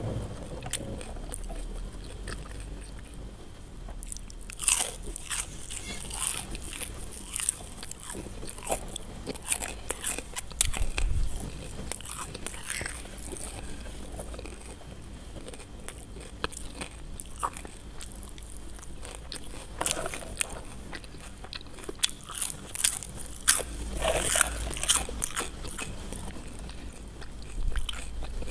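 Close-up crunching and chewing of crispy fried potato fries, eaten by hand. Crackling bites come in several spells, with quieter chewing between them.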